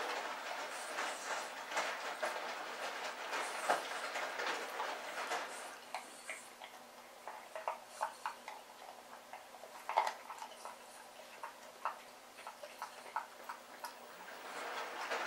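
Shar-Pei puppy chewing raw chicken ribs: irregular crunches and clicks of bone and teeth. The crunching is busy at first, thins out to scattered clicks in the middle, and picks up again near the end.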